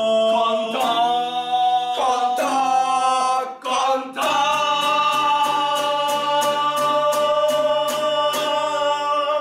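Music of several voices singing long held chords. A light, steady beat of about three clicks a second comes in about four seconds in.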